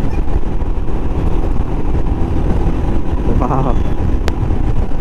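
Royal Enfield Himalayan's single-cylinder engine running at highway cruising speed under a steady rush of wind noise on the camera microphone. A brief bit of voice comes about three and a half seconds in, and a single sharp click a little after four seconds.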